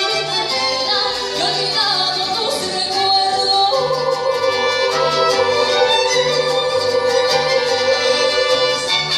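Mariachi band with a female singer: voice and violins carrying the melody over a pulsing bass, with a long note held from about four seconds in until near the end.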